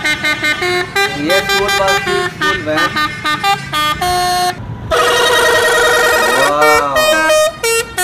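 A bus's multi-tone 'telolet' horn playing a quick tune of short notes. About five seconds in it holds a long chord for a second and a half, then a note bends up and back down before the quick notes return.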